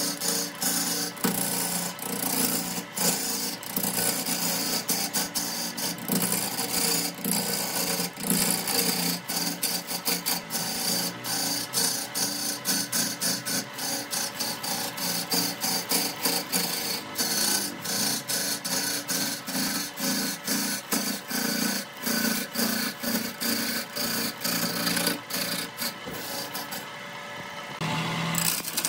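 Wood being cut on a spinning lathe: a turning tool scraping and rasping against the wood, with rapid, irregular ticking and clatter over a steady hum. Near the end the high scraping briefly falls away.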